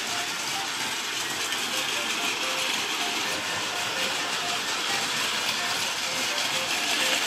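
Plarail toy shinkansen running on plastic track: the small battery motors and gears whir steadily while the plastic wheels rattle along the rails, growing a little louder near the end as a train passes close.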